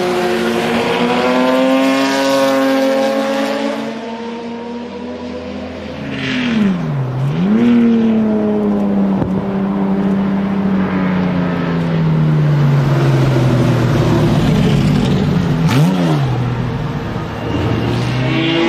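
BMW E9 3.0 CSL race car's straight-six running hard on track, its revs rising and falling as it drives past. The pitch drops sharply and climbs again about seven seconds in, and again near sixteen seconds.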